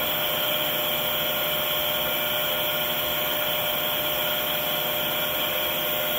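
A power-line noise sniffer plugged into an unfiltered 110-volt AC wall outlet, its speaker playing the electrical noise on the line as a steady hiss with a faint buzzing tone.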